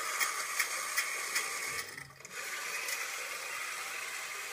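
A vintage battery-operated Alps Westland tin toy helicopter running: its small electric motor and gears whirr while the main rotor spins, with a regular clicking about twice a second. The whirr drops out briefly about two seconds in, then carries on steadily.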